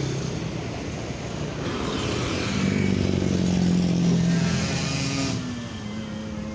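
Bus engine running as it passes close by, growing louder to a peak around the middle and then fading. A broad hissing rush stops abruptly about five seconds in.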